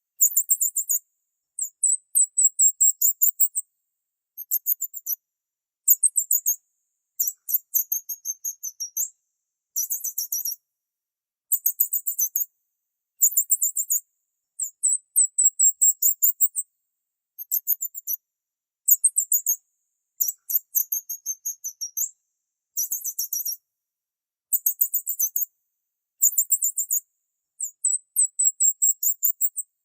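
Small songbird chirping: very high-pitched phrases of rapid chirps, each about a second long, repeated every second or two with silent gaps between them.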